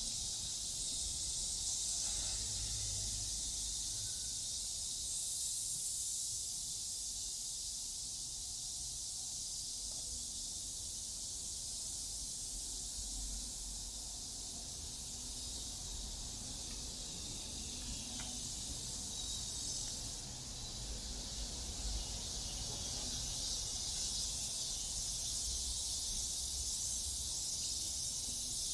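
A steady, high-pitched chorus of insects buzzing, swelling and easing slowly, over a low rumble.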